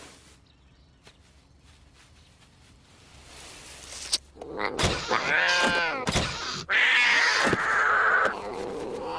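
Cartoon cat sound effects: after a few quiet seconds, a thump, then a wavering yowl, a second thump and a long harsh hiss with another thump in it.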